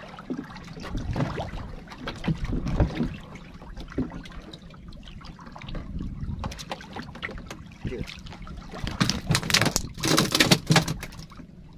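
Water lapping and splashing against a small wooden boat while a longline is hauled in by hand, with scattered knocks on the hull. About nine seconds in comes a louder burst of splashing and knocking that lasts about two seconds.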